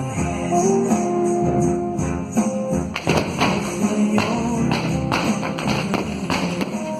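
Music: an instrumental passage of a hymn between sung lines, with held melody notes, then from about three seconds in a steady beat of sharp percussive hits roughly twice a second.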